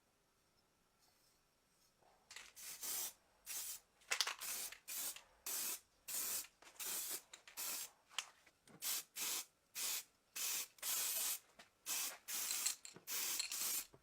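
An aerosol spray can sprayed in about twenty short hissing bursts, starting about two seconds in and coming roughly two a second, some held a little longer than others.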